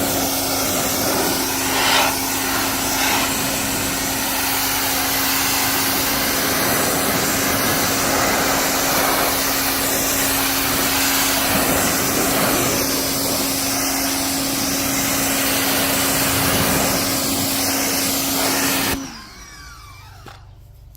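Greenworks electric pressure washer spraying through a 25-degree nozzle: a steady motor hum under the loud hiss of the water jet. It stops suddenly about nineteen seconds in.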